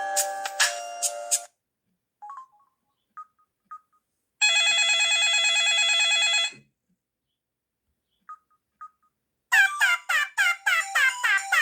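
Samsung SGH-F480 mobile phone ringtones playing through the phone's small speaker, one after another. A melodic ringtone stops about a second in, followed by a few short beeps and a two-second buzzing trill tone. After two more beeps, a new ringtone of quick falling chirps starts near the end.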